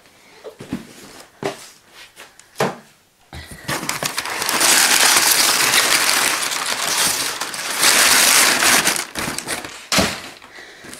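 Cardboard and packing material crinkling and scraping for several seconds as a boxed kit is pulled out of a cardboard shipping carton. There are a few light knocks before it and a sharp knock near the end as the box is set down on a wooden table.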